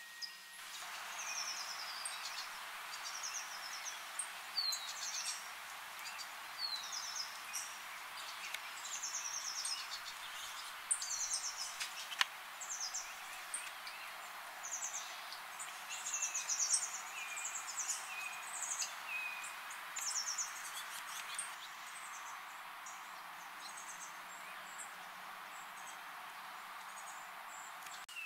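Several small songbirds chirping and singing short trills, one after another, over a steady hiss of outdoor background noise.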